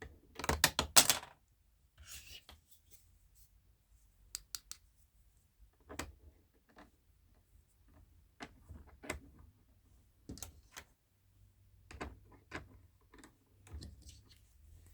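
Pieces of a small kitchen set being unboxed and handled, clicking and tapping against each other. A quick rattle of clicks comes in the first second or so, then single light taps and clicks every second or two.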